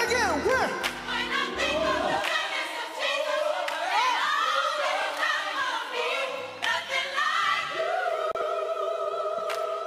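Gospel choir singing a worship song, voices holding long notes that slide in pitch, with bass notes underneath near the start and again about two-thirds through.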